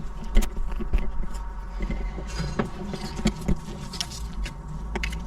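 Irregular light clicks and knocks of parts and tools being handled, over a steady low hum.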